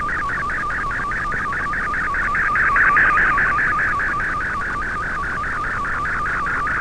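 Shortwave digital picture transmission in fldigi's MFSK image mode, received in AM on an Icom IC-R8600: a wavering band of data tones, with a short low tone blipping about five times a second as each picture line begins. It swells slightly about halfway through.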